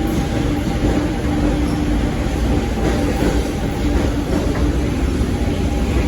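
SuperVia electric suburban train moving along the platform: a steady, loud rumble with a low electrical hum.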